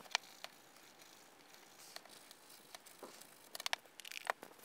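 Faint, scattered scratches and small clicks of a scrap of sandpaper rubbing the plastic of a Commodore 64 case lid by hand, roughening the raised areas for gluing, with a quick cluster of scratches near the end.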